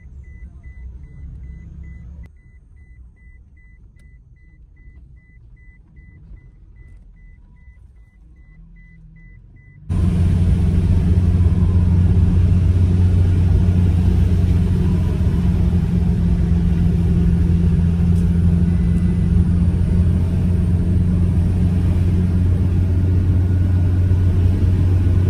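Car driving on a paved road, heard from inside the cabin: a steady low drone of engine and tyre noise that jumps abruptly louder about ten seconds in. Before the jump the drone is quieter, with a faint high pulsing beep.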